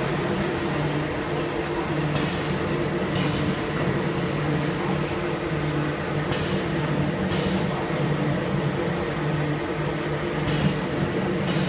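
JS PTE 2120M multi-blade paper tube machine running with a steady hum. Short hisses come in pairs about a second apart, repeating roughly every four seconds with the machine's cycle.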